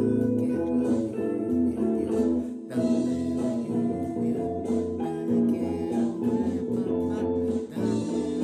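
Music: a guitar-led song with drums, a drummer playing along on a drum kit.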